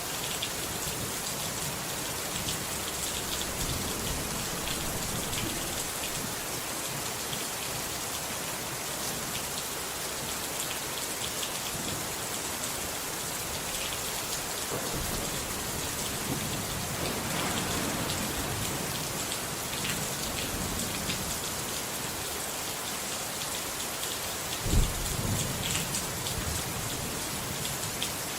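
Steady rain falling, with one sudden low clap of thunder near the end.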